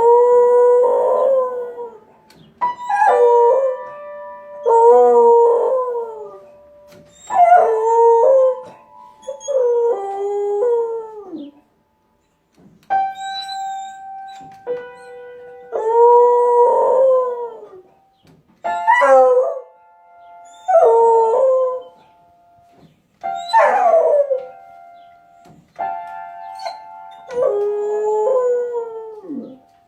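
A dog howling along with music: a dozen or so drawn-out howls, each a second or two long, several sliding down in pitch at the end, over steady held musical notes.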